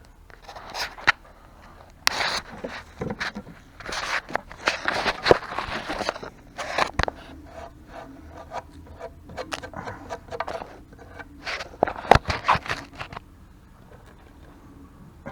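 Irregular scraping and rubbing with scattered sharp knocks and clinks from tools and metal parts being handled under a riding mower's deck.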